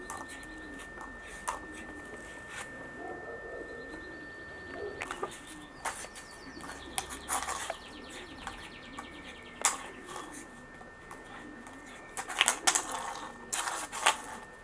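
Bernese Mountain Dog puppy's claws and paws tapping and scraping on stone patio tiles as it paws at a hairbrush and knocks it about: scattered sharp clicks, with a cluster of louder clatters about twelve to fourteen seconds in. A faint steady high tone sounds throughout.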